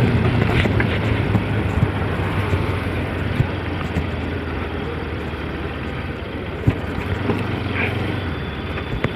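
Bajaj Pulsar RS200's single-cylinder engine running steadily at low speed, with road noise and a couple of short sharp knocks.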